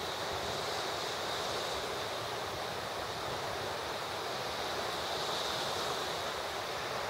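Steady wash of small waves on a sandy beach, with wind on the microphone and a faint steady high whine above the noise.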